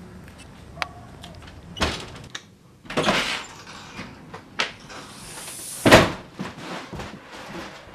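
A house's front door being opened and shut: latch and handle clicks, a longer rush of noise about three seconds in, and a loud thud as the door closes just before six seconds.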